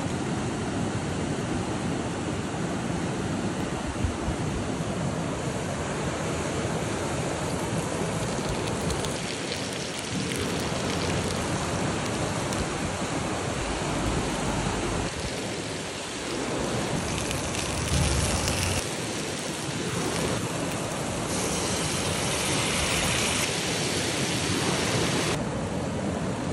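Steady rush of a mountain stream running over rocks, with a brighter hiss for a few seconds in the last third.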